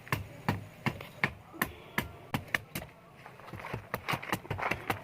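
Knife chopping on a cutting board in a steady run of sharp strikes, about three a second, with a brief pause around the middle.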